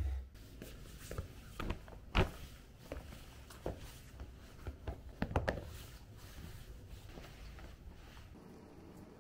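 Scattered light knocks and clicks of things being handled, the loudest about two seconds in and a cluster of them a little past five seconds, then quieter.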